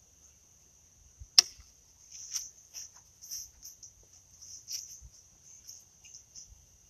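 Insects trilling steadily in high, pulsing waves, with one sharp click about a second and a half in and soft footsteps through grass after it.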